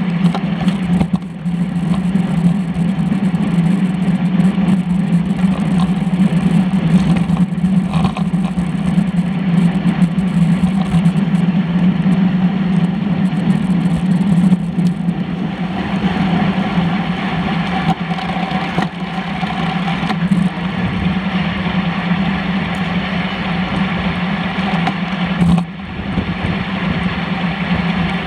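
Steady low drone of a road bicycle at racing speed, heard from a handlebar-mounted camera: wind rush and road rumble with a constant hum, broken by a few brief knocks.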